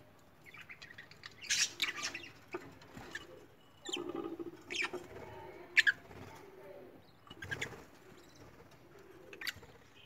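Lovebird feeding at a seed tray: a scattering of sharp clicks and scratches from its beak working the seed and dish, with a few soft chirps between them.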